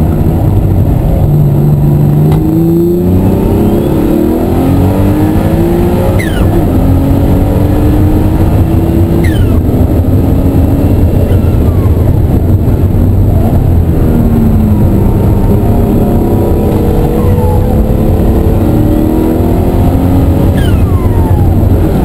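Ruf CTR twin-turbo flat-six heard from inside the cabin, pulling hard and revving up through the gears, its pitch climbing several times and dropping back at each upshift, over steady road and wind noise.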